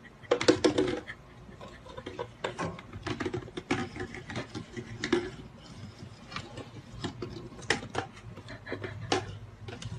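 A small plastic bottle clattering and scraping over a wooden floor as a hamster drags and rolls it: a run of irregular knocks and rattles, loudest about half a second in.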